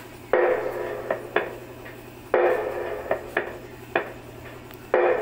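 Drum loop played through a Black Mamba 12-inch neodymium loudspeaker driver: a repeating beat, with a heavy hit about every two seconds and sharper, lighter hits between.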